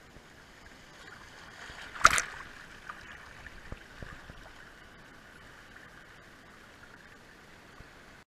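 Shallow seawater washing over sand, with one loud, sudden splash about two seconds in, then a steady wash of water.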